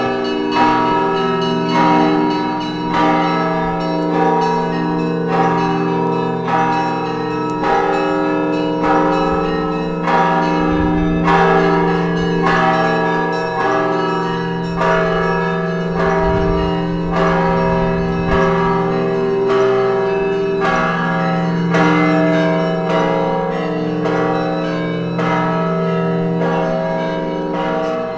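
Church bells ringing a peal: a steady rhythm of strikes over lingering, held bell tones.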